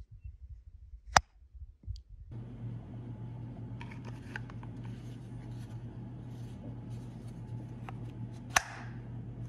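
A knife snapping home into a molded leather sheath, with one sharp click about a second in. After a couple of seconds a steady low hum comes in. Leather rubs and small clicks follow as another knife is worked into a leather sheath, and a second loud snap comes near the end.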